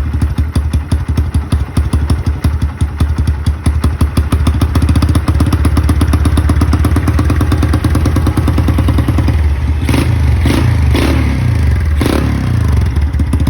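Single-cylinder Honda Karisma engine bored up with a Honda Sonic piston, running with a rapid, even firing beat. Near the end there are four short, sharp throttle blips.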